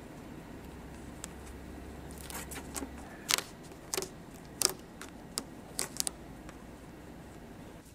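Blue painter's tape being pressed and smoothed down along the edge of an aluminium aircraft fuselage: a string of short crackles and ticks, loudest in the middle.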